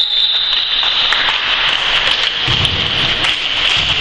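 Applause and clapping in a sports hall at the end of a basketball game, a dense steady patter throughout.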